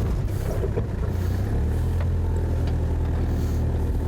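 A work car's engine running steadily with a low hum that grows stronger about one and a half seconds in.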